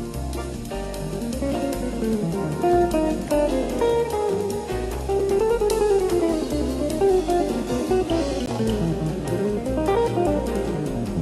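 Background music led by plucked guitar, with quick melodic runs over a steady bass line.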